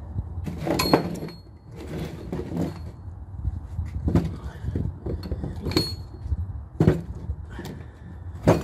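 Irregular clunks and knocks of engine parts, among them a cast-iron cylinder head, being handled and set down on a wooden work table. A couple of them give a short metallic ring. A low steady rumble runs underneath.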